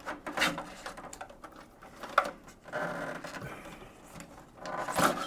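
Hands working on the plastic and metal parts of an opened iMac G3: scattered light clicks, taps and rustling, with a sharp click about two seconds in and a louder clatter near the end.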